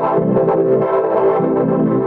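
Church bells ringing: a dense, sustained wash of overlapping bell tones, with the lower tones swelling again roughly every two-thirds of a second as the bells keep being struck.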